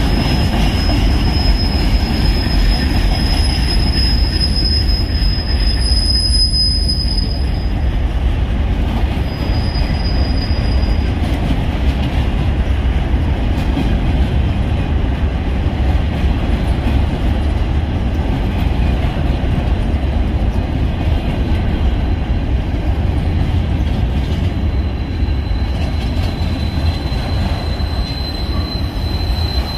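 Boxcars and autoracks of a Union Pacific manifest freight train rolling past with a steady rumble of wheels on rail. High-pitched wheel squeal comes and goes: through the first several seconds, briefly again a little later, and back near the end.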